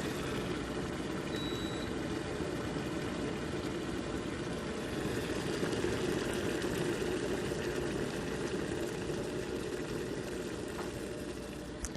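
Cuisinart stainless steel cordless electric kettle heating water: a steady rushing, rumbling noise as the water comes toward the boil.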